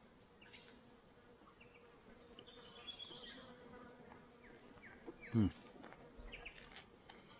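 A fly buzzing steadily close by, with faint bird chirps scattered through. About five seconds in comes a short, louder falling vocal sound.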